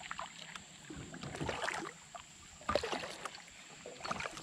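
Kayak paddle strokes in calm river water: the blade dips in and splashes, with drips running off it, a splashy stroke about every second and a half.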